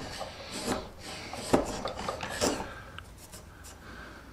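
Homemade curved Japanese saya chisel paring across a block of padauk wood: three short scraping cuts about a second apart, then a few faint taps.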